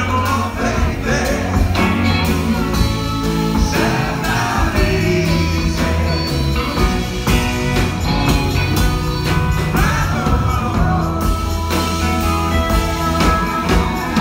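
Live band playing a country-rock song with electric guitars and bass, and a woman singing lead over it.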